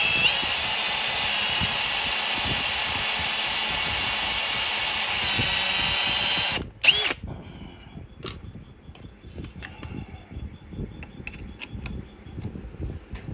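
Handheld electric drill running steadily with a high whine as it bores into the top of a screw, stopping abruptly after about six and a half seconds. A brief second burst follows, then only light clicks and knocks of handling.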